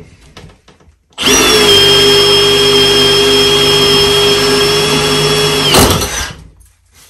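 Power drill running steadily at full speed with a high whine as a 6 mm Milwaukee Shockwave titanium bit bores through 10 mm thick metal. It starts about a second in, runs for about four and a half seconds, and stops with a knock.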